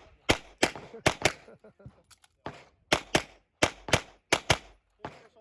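A CZ Shadow 2 9mm pistol fired rapidly: about a dozen shots, many in quick pairs a fraction of a second apart, with short gaps between groups as the shooter moves between targets.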